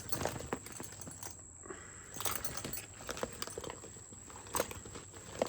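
Handbags being handled and sorted: rustling with a run of light clicks and knocks, likely their buckles and clasps, the sharpest about four and a half seconds in and again near the end.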